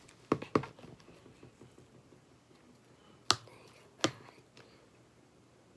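Fluffy slime worked by hand, giving sharp pops: two close together near the start, one about three seconds in and one a second later, with a few fainter clicks between.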